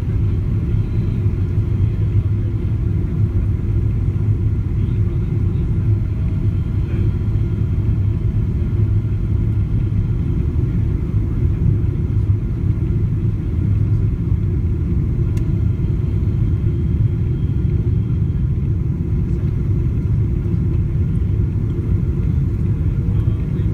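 Steady low rumble inside the cabin of a Boeing 777-200 airliner on descent: engine and airflow noise that stays even throughout.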